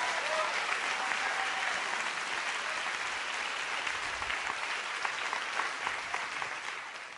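A large lecture-hall audience applauding, a dense steady clapping that fades toward the end.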